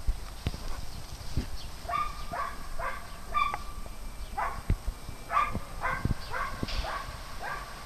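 Small dogs barking in short, high yips, about a dozen spread over several seconds once the first second or two has passed. A few sharp low thumps come through in between.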